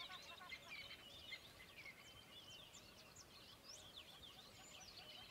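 Faint chirping and twittering of several small birds, with many quick rising and falling calls.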